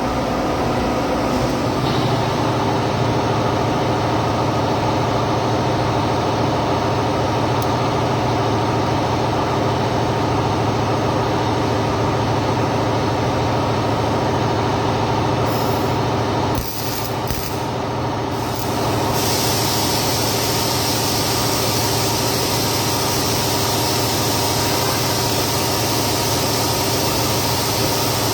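Steady machine hum with several held tones. After a brief drop about 17 s in, a loud steady hiss joins about 19 s in and keeps going.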